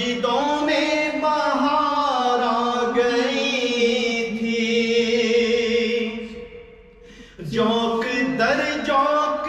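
A man singing a naat unaccompanied, in long drawn-out notes whose pitch bends and wavers. He breaks off for about a second a little after six seconds in, then sings on.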